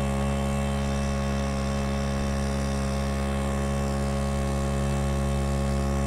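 A fishing kayak's motor running at a steady cruising speed, making a constant drone that does not change pitch.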